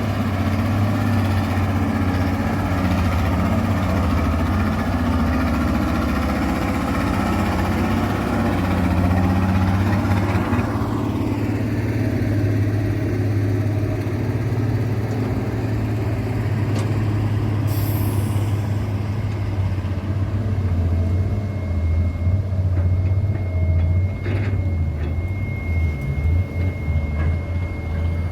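Heavy diesel machinery running steadily: the Hitachi ZX200-5G excavator working beside a fully loaded ten-wheel dump truck. The engine note falls away about ten seconds in, a short air-brake hiss comes near eighteen seconds, and a thin steady whine sounds from about twenty-one seconds.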